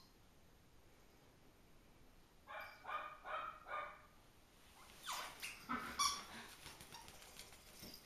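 Small dog giving short, high-pitched yips: four quick ones in a row a few seconds in, then a few louder ones later.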